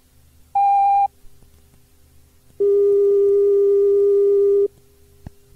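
Electronic signal tones on an old cassette tape of train announcements: a short higher beep about half a second in, then a steady lower tone lasting about two seconds, over faint tape hiss and hum.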